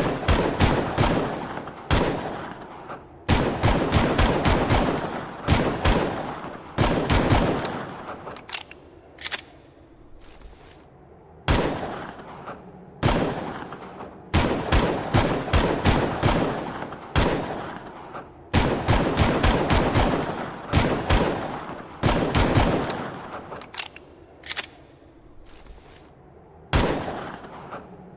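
Longslide pistol firing, sometimes single shots and sometimes quick strings of several shots. Each shot has a fading, echoing tail.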